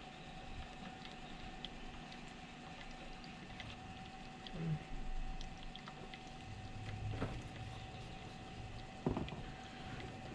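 Wet sharpening system running with a steady, faint hum during the stropping stage. A few light ticks and three short knocks about 4.5, 7 and 9 seconds in.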